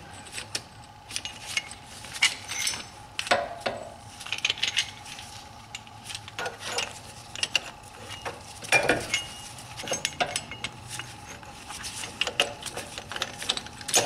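Rear brake caliper parts and brake pads being handled by hand: irregular light metallic clicks, clinks and knocks, a few of them louder.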